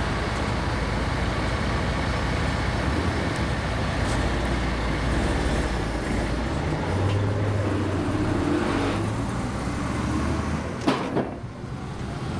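Street traffic with a heavy vehicle's engine running close by, a steady rumble and road noise. A pitched engine tone rises out of it partway through, and a sharp click comes near the end, after which it briefly goes quieter.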